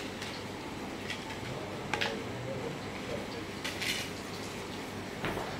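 A few light plastic clicks and rustles as a CD-style disc is handled and put into a player, over steady room hum; the sharpest click comes about two seconds in, and a short scraping rustle a little before four seconds.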